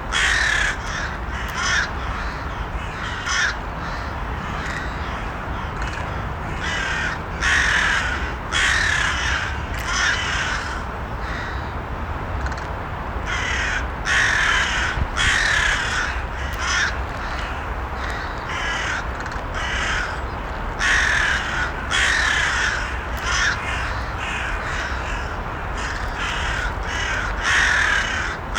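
Crows cawing, their harsh calls coming in bouts of several caws every few seconds over a steady low background noise.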